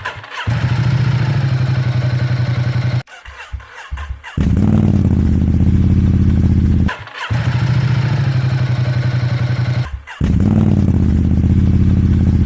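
Ducati Diavel 1260 S V-twin with a Termignoni exhaust, baffles removed, starting and settling into a steady idle. It is heard in four short takes with brief breaks between them, each opening with a short flare of revs that drops back to idle.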